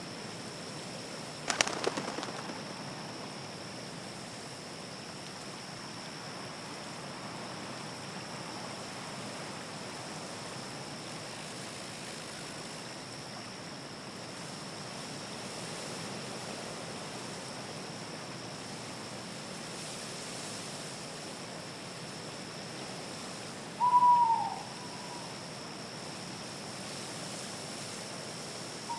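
An owl hoots once near the end, a short call that drops in pitch, over a steady night-ambience hiss with a thin, high, unbroken tone. A short, sharp, louder sound comes about one and a half seconds in.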